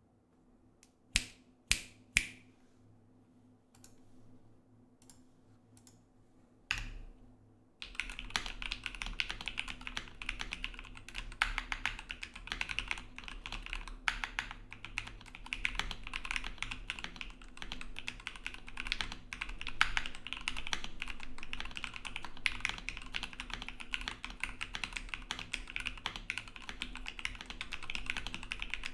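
Mechanical keyboard with lubed Gateron Milky Yellow linear switches in a white acrylic sandwich case (KBD75V2). A few separate keystrokes come first: three sharp clicks, then some faint ones and another click. About eight seconds in, fast continuous typing begins and carries on.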